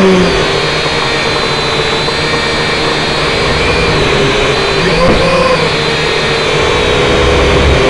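Small toy quadcopter's electric motors and propellers whining steadily in flight, with the pitch shifting briefly about five seconds in as it manoeuvres.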